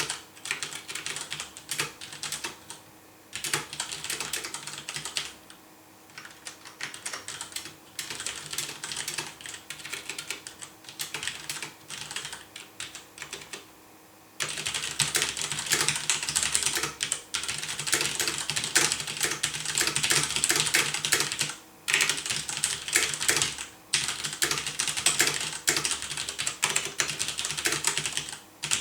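Typing on a WASD TKL mechanical keyboard with Cherry MX Brown switches and ABS keycaps, with no O-rings fitted, so the keycaps bottom out undamped. A steady stream of key clicks with a few short pauses, louder and denser from about halfway through.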